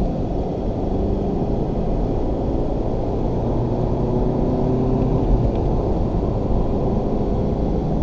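Alfa Romeo car's engine and tyre noise heard inside the cabin, a steady low drone with a faint engine tone, running in third gear on the track.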